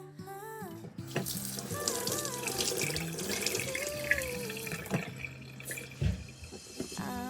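Water running from a tap into a sink for a few seconds, over soft background music.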